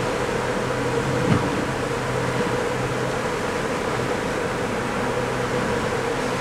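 Steady mechanical drone of a cruise ship under way, with a constant low hum, and one brief knock about a second in.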